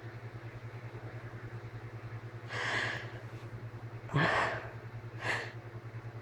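A person sneezing, allergic sneezing brought on by cats: three short breathy bursts, the loudest and sharpest about four seconds in, over a steady low hum.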